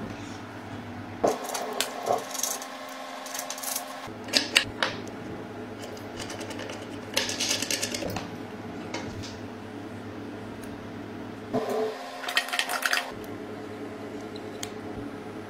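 Scattered light metallic clicks and clattering, as of small metal parts being handled and fitted, over a steady low hum.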